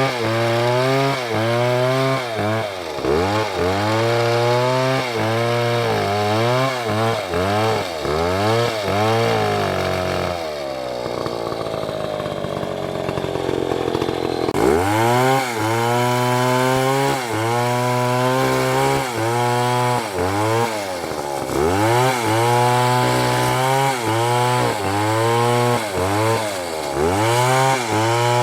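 Chainsaw cutting wood, its two-stroke engine pitch repeatedly sagging and recovering as the chain loads in the cut. About ten seconds in, the engine note gives way for a few seconds to a rougher, noisier rasp, then the rising and falling resumes.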